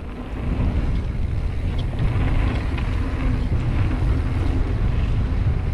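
Wind buffeting an action camera's microphone while a mountain bike rolls fast over a dirt trail, a steady rumble with faint rattles that grows louder about half a second in.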